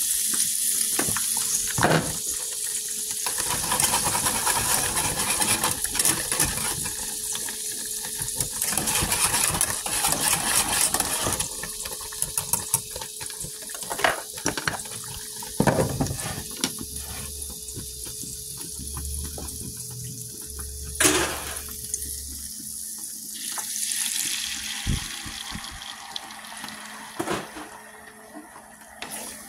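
Hot grease sizzling and bubbling in a skillet, a steady hiss, with a few sharp clanks of cookware about 14, 16 and 21 seconds in.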